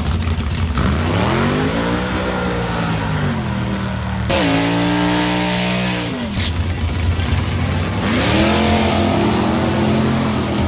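Drag race car engines revving: the pitch climbs, holds and drops three times, with a steady low engine rumble underneath.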